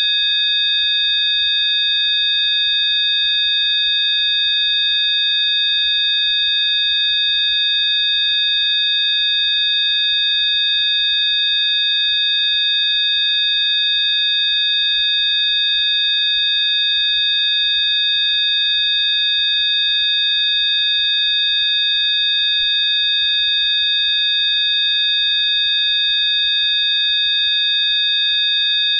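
Electronically generated Rife frequency tones: several steady, high-pitched pure tones sounding together, unchanging in pitch and level.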